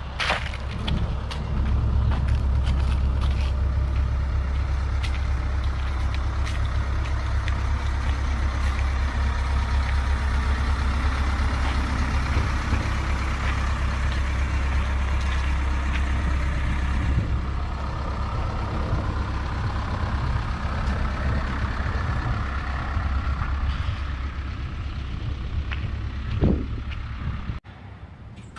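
Kobelco SK200-10 hydraulic excavator running: a steady low engine drone with scattered clanks and knocks. It eases off about two-thirds of the way through and cuts off suddenly near the end.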